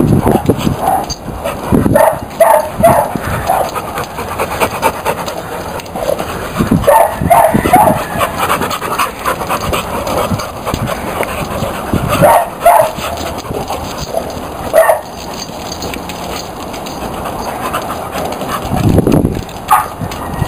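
Pit bulls panting in quick bursts of short breaths every few seconds while they play. A low rumble comes near the end.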